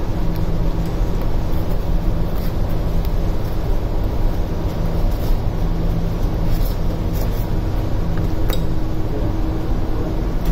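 Steady low drone of running ship's machinery, with a few light clicks and clinks as a sensor unit and its cable connector are handled.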